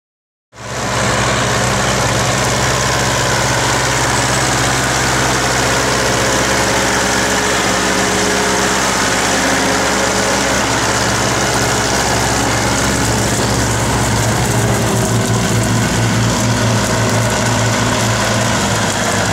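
Diesel engines of an Ursus C-360 tractor and a Bizon Z056 combine harvester running at a steady speed. The sound sets in abruptly about half a second in.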